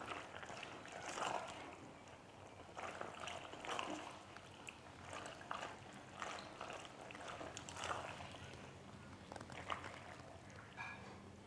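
Faint, irregular wet stirring sounds: a silicone spatula working pasta through thick cheesy white sauce in a non-stick pan, in soft swells every second or two.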